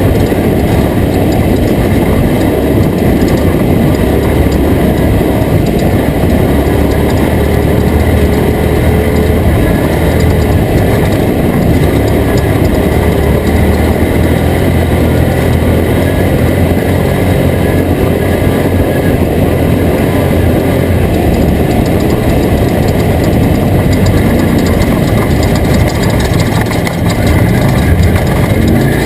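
Toyota Tacoma prerunner race truck running steadily over rough ground, its engine drone mixed with continuous rattling and clatter.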